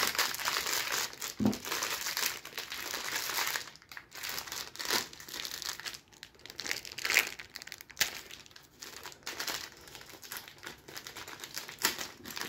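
Thin clear plastic toy bag crinkling and rustling as hands handle it and pull at it to open it. The rustle is louder and denser for the first four seconds, then goes on in shorter, softer spells.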